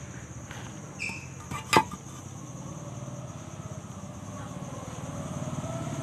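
A small engine running steadily with an even low pulse, growing louder toward the end, with a faint click about a second in and a sharp, loud hard click just under two seconds in.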